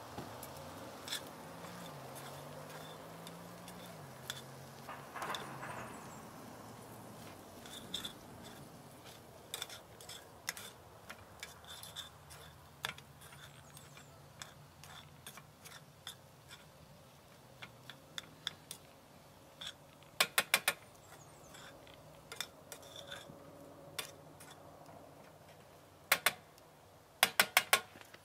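Cooking utensil scraping and clinking against a frying pan on a camp stove, in scattered sharp clicks. The loudest come as quick runs of metallic taps in the last third, a few rapid strikes at a time.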